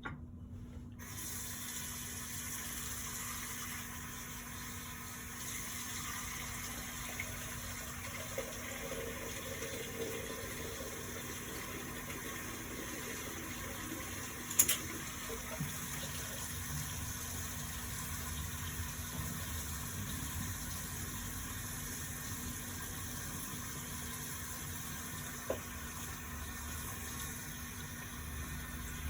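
Steady rush of running water that starts suddenly about a second in, with a sharp click about halfway through.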